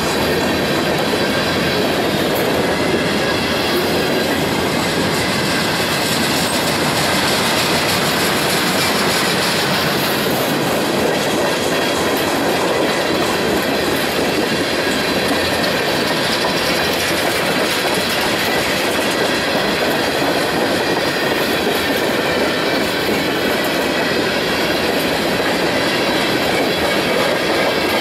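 Freight train of tank cars rolling past close by: a steady noise of steel wheels running on the rails, with faint high ringing tones above it.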